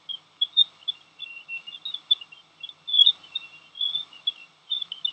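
Jupiter's radio/electromagnetic emissions, recorded by NASA spacecraft instruments and converted into audible sound: a rapid, irregular stream of short high chirps and blips over a faint hiss.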